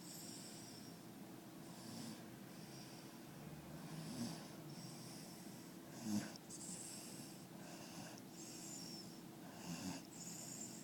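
Dog snoring: soft hissy breaths every second or two, with three louder snores about four, six and ten seconds in.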